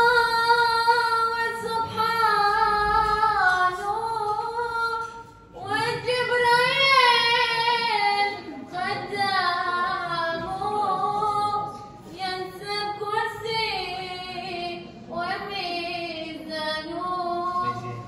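A single high voice singing a slow, unaccompanied melody in long held, wavering phrases with short pauses between them.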